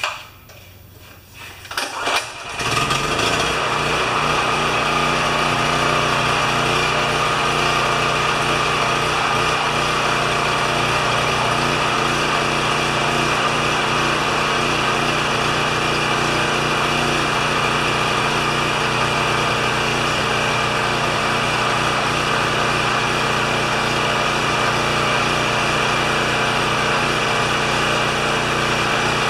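Champion 3000-watt generator's small engine started with a pull, catching about two seconds in and then running at a steady, even speed.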